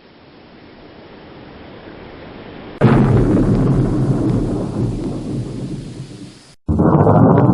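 Thunder: a low rumble swells for a few seconds, then a sharp thunderclap breaks about three seconds in and rolls away over several seconds. It cuts off, and a different loud, steady rumbling noise starts suddenly near the end.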